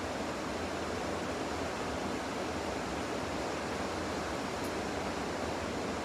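A steady, even hiss of background noise that does not change, with a faint tick about four and a half seconds in.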